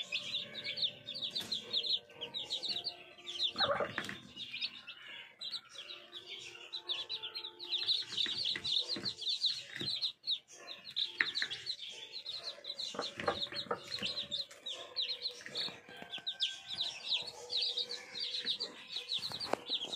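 A brood of chicks, some of them naked-necks, peeping non-stop in quick high chirps. Their mother hen clucks low now and then among them.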